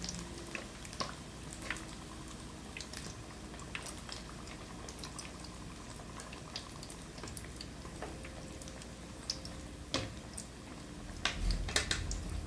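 Batter-coated sweet potato slices deep-frying in hot oil: a steady sizzle with scattered crackling pops. Near the end it grows louder, with low thumps.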